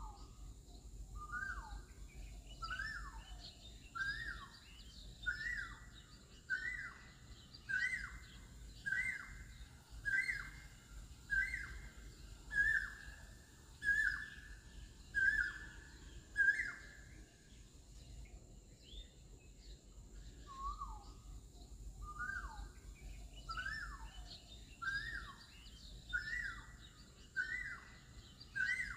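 A bird calling a long series of short whistled notes about a second apart, each a little higher than the last until they level off. The series breaks off for a few seconds, then starts again low and climbs once more.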